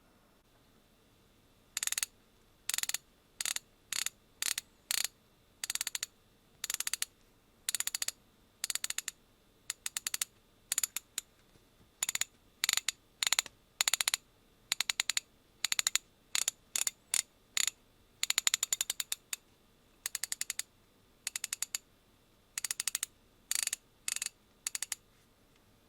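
TONE 371-N 1/2-inch drive, 20-tooth standard ratchet handle being swung back, its pawl clicking over the gear in short runs of rapid clicks. The runs repeat about two dozen times with brief pauses between them, starting about two seconds in.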